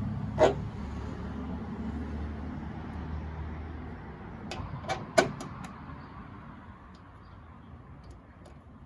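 Sharp metal knocks and clicks from hood hardware being worked on a Jeep Wrangler JK: one knock about half a second in, then a quick cluster of clicks and knocks around five seconds in. Under them is a low rumble that fades away through the first half.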